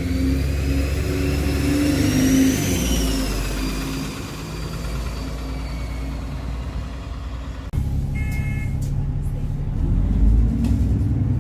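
Alexander Dennis Enviro 400 double-decker bus's diesel engine pulling away, heard from on board, with a loud high turbo whistle that rises to a peak and then fades as the engine eases off. A short electronic beep sounds about eight seconds in, and near the end the engine pulls harder again.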